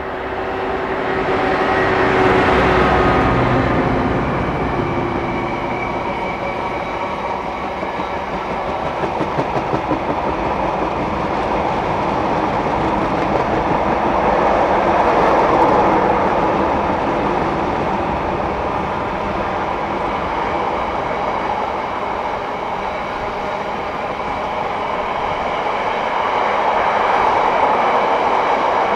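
Class 59 diesel locomotive's engine passing close, loudest about two to three seconds in, then a long rake of stone hopper wagons rolling past with a steady rumble and wheel clatter over the rail joints.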